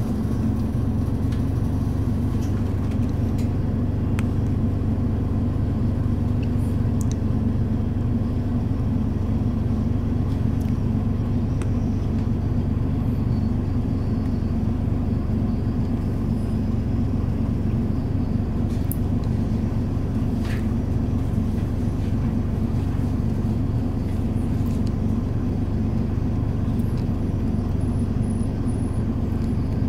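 Mitsubishi Fuso Aero Star KL-MP37JK city bus engine idling steadily with the bus stationary, heard from inside the passenger cabin, with a few faint clicks.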